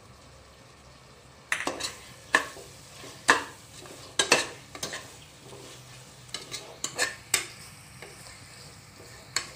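A plastic spatula stirring prawns and spice masala in a pressure cooker pan, in irregular scrapes and knocks starting about a second and a half in, over a faint sizzle of frying.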